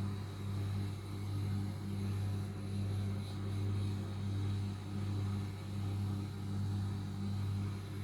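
Steady low electrical hum from a mains-powered appliance, swelling and fading evenly about one and a half times a second.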